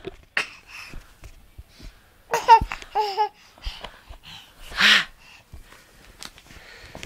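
Baby giving a few short, high-pitched laughs and babbling squeals with gaps between them, one of them a breathy wheezing laugh about five seconds in.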